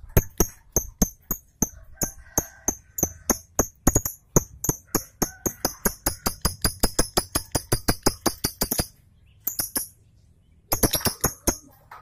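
Caged lovebird chattering: a long run of short, sharp, high-pitched chirps, about four a second at first and then faster, breaking off about nine seconds in and starting again near the end.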